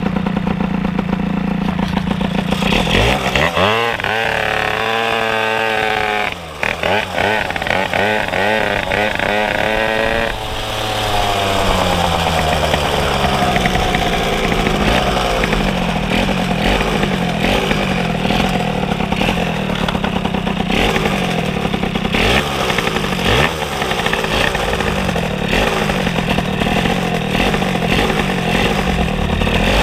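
Moped engine idling, then revving up several times in quick rising sweeps as it pulls away, before settling into steady running under way.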